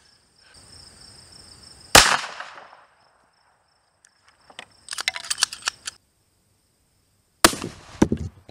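A single 9mm pistol shot about two seconds in, sharp with a short echo trailing off. A clatter of small clicks follows a few seconds later, then another sharp bang with a short rattle near the end. Crickets chirp steadily underneath.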